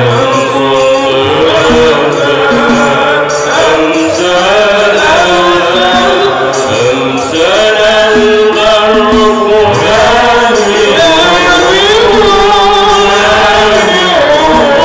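Men's voices chanting an Islamic praise song for the Prophet in the Bayyat maqam, sung into microphones with melismatic, gliding melody lines.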